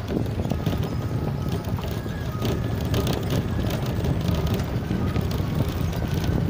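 Vehicle driving over a rough, stony dirt road: a steady low engine and road rumble with frequent short clicks and rattles from the bumps.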